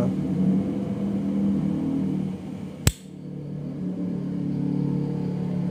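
A single sharp metallic click about three seconds in: the lid of a Dunhill Rollagas lighter snapping shut. A steady low hum runs underneath.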